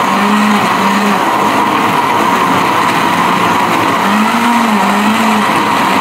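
Countertop electric blender running at speed, grinding shallots, garlic and chilies into a paste: a loud, steady motor noise with a constant high hum and a lower note that wavers now and then as the contents churn.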